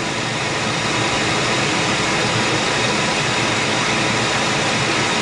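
2004 Ford F-150's engine running with the accelerator pressed, a steady whooshing noise that rises slightly in the first second and then holds at raised revs.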